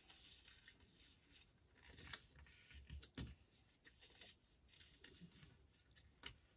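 Faint rustling and light clicks of cardstock being folded by hand along its score lines, with a few slightly louder crinkles about two, three and six seconds in.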